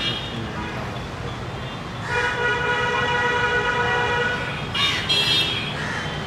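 Vehicle horn honking: one long steady blast of nearly three seconds, then a shorter, louder honk about five seconds in, over a steady rumble of traffic.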